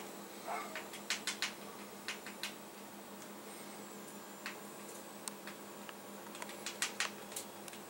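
Scattered light clicks and taps, a few at a time and irregularly spaced, over a steady low hum.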